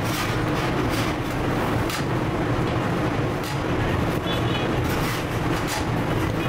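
Steady low drone of bakery machinery running, with scattered light taps and clicks over it.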